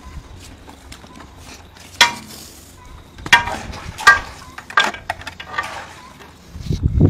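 A handful of sharp metallic clinks and scrapes from butchering tools handled at the carcass, each with a short ring. The first and loudest comes about two seconds in, and the rest follow over the next few seconds.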